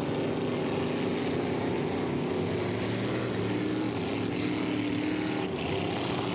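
Ski race boat's inboard racing engine running at low speed, a steady drone whose pitch shifts slightly.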